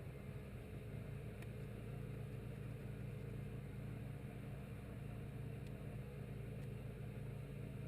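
Steady low electrical or mechanical hum with a few faint clicks.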